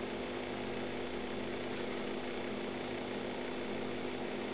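Steady electrical hum with a constant background hiss: room tone with no distinct events.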